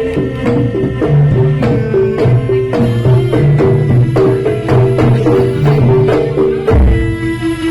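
Live jaranan (kuda lumping) gamelan-style accompaniment: steady drum strokes under a fast repeating pitched melody, with a deep low note coming in near the end.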